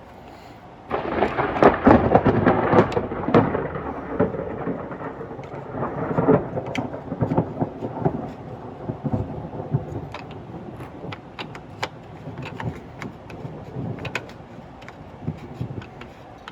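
Bypass valve being handled and screwed by hand onto a water filter tank. Dense crackling and scraping starts about a second in, then eases after about seven seconds into scattered sharp clicks.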